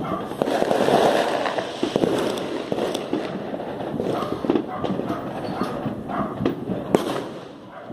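New Year fireworks going off all around: a continuous mass of overlapping bangs, pops and crackling, with a single sharp bang near the end.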